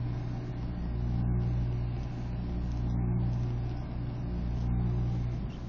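A steady low hum, swelling and easing gently in level.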